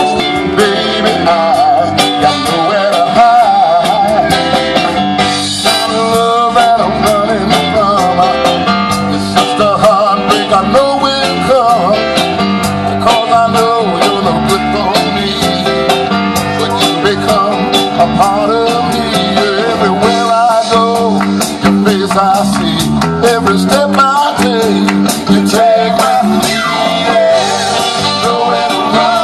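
Live band playing a Motown song, with guitar, a steady drum beat and singing.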